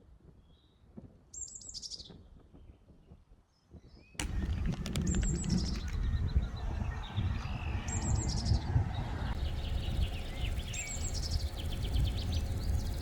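A songbird repeating the same short high phrase, starting high and sliding down, about every three seconds. About four seconds in, a loud steady low rumbling noise sets in suddenly and runs under the song.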